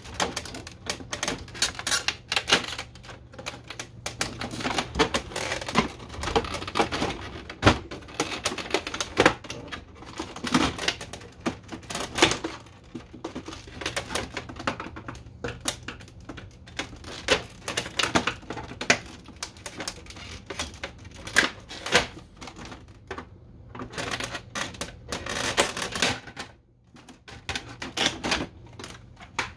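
Hard plastic panels of a Canon Pixma MG6220 inkjet printer clicking, knocking and rattling in quick irregular succession as the scanner top cover is lifted and shifted and a screwdriver pries at the side-cover latch tabs.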